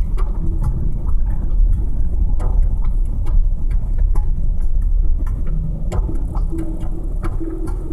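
Car interior noise while driving slowly: a heavy low engine and road rumble with scattered light knocks. A steadier hum joins in about six seconds in.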